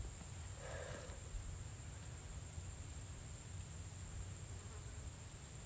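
Quiet woodland ambience: a steady low hum under an even hiss, with a thin, steady high tone and a brief soft sound about a second in.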